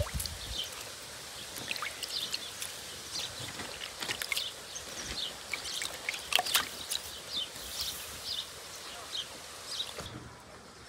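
Water splashing and dripping in a plastic basin as cauliflower pieces are washed and handled in it: small irregular splashes and drips.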